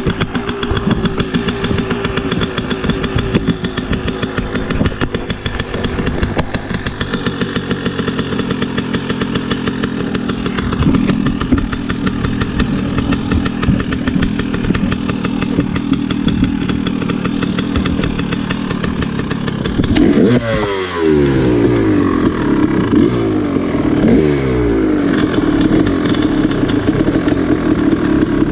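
Dirt bike engine running steadily at low revs. It is blipped twice, about 20 and 24 seconds in, and the pitch drops back after each rev.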